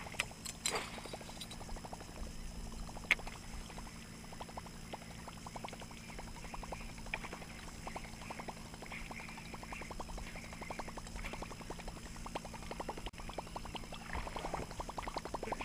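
Baitcasting reel being cranked through a bucktail retrieve: a long run of rapid soft ticks, with one sharper click about three seconds in. A low steady hum and water lapping at the boat lie under it.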